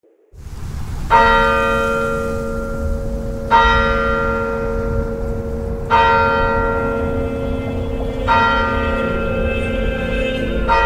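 A single church bell tolling slowly: five strokes of the same pitch about two and a half seconds apart, each ringing on into the next, over a low rumble.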